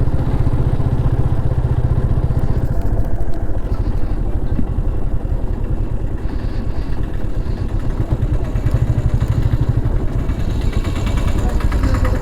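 Motorcycle engine running steadily as the bike is ridden along the road.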